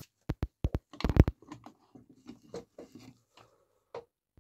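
Handling noise as the halves of a 3D-printed plastic engine crankcase are pulled apart: a run of sharp clicks and knocks, loudest in a cluster about a second in, then softer clicking and scraping of plastic parts.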